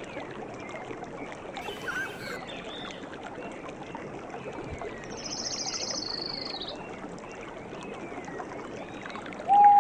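Running water of a forest stream or river, a steady rush, with birds calling over it. A rapid high trill comes about five seconds in, and a loud clear call near the end.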